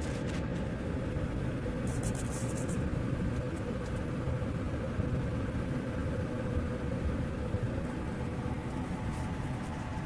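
Steady low rumbling background noise with a faint steady hum, and a brief high hiss about two seconds in.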